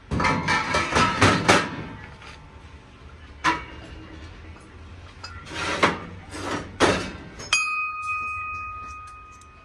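Brass vessels and utensils clattering and clinking against each other as they are handled and shifted on a shelf. About three quarters of the way in, one brass piece is struck and rings with a clear metallic tone that fades away over about two seconds.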